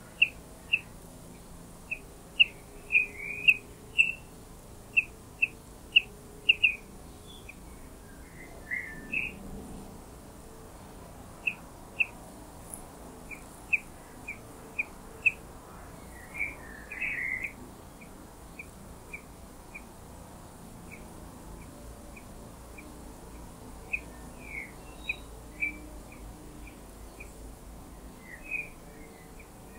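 Eurasian blackbird nestlings begging from the nest: short, high chirps repeated about once or twice a second, with a few quick clustered runs.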